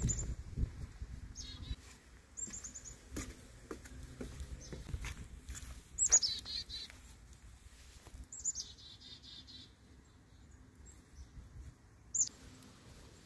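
Small birds calling: several short, high chirps that slide downward, and a brief warbling trill a little past the middle, with the loudest chirp about halfway through. Underneath is a low rumble of wind and camera-handling noise, strongest at the start.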